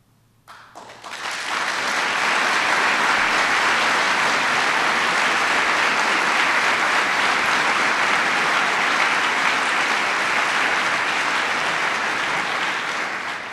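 Audience applauding. The clapping starts about half a second in, builds to a steady level within a second, and fades out near the end.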